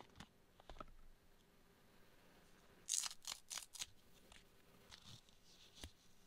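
Packaging crinkling in a short burst about three seconds in as a clear hard plastic watch case is slid out of its packet, with a few faint clicks of the case being handled and one sharper click near the end.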